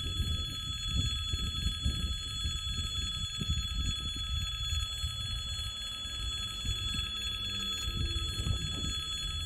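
Level-crossing warning bell ringing steadily and without a break, over a gusty low rumble.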